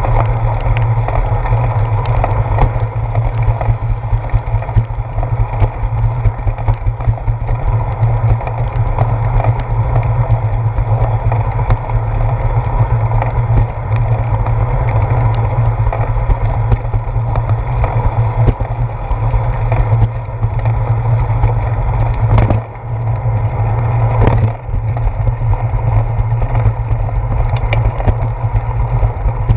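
Riding noise of a bicycle on a wet sidewalk, heard through a handlebar-mounted GoPro: a steady low rumble of wind and road vibration with many small knocks from bumps in the pavement. The rumble drops off briefly twice, about three quarters of the way through.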